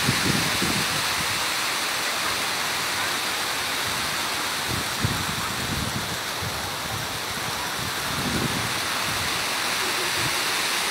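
Reservoir water rushing steadily over the spillway as the dam overflows, with a few low rumbles now and then.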